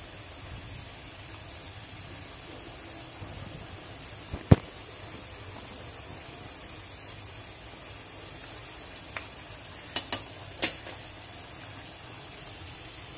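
Curry simmering with a steady low sizzle in a nonstick pan. Utensils give a few sharp taps, the loudest about four and a half seconds in and several smaller ones around ten seconds.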